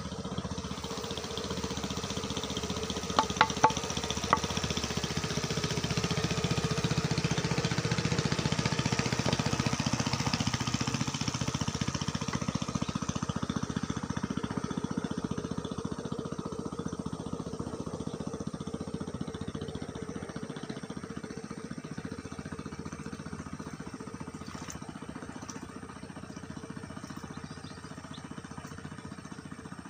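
Engine of a small fishing boat passing on the river. It grows louder to a peak about eight to ten seconds in, then slowly fades. A few sharp clicks come about three to four seconds in.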